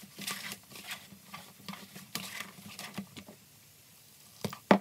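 Hands squishing and patting corn masa dough in a plastic bowl: irregular soft squelches and pats, easing off about three and a half seconds in, then one louder knock just before the end.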